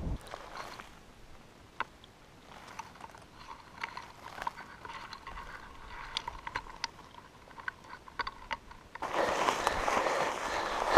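Sparse light ticks and crackling of low shrubs being handled as blueberries are picked. About nine seconds in, a loud, steady rush sets in: stiff spruce branches brushing and scraping past while pushing through dense tuckamore.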